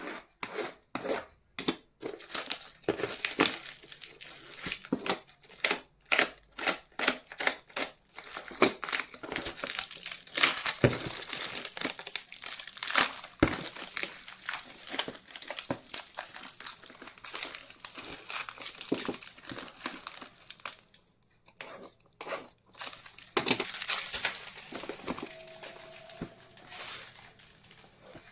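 Keyboard packaging being unwrapped and opened by hand: a rapid series of short rustling, crinkling sounds, sparser over the first few seconds and denser after, with a brief lull a little past twenty seconds in.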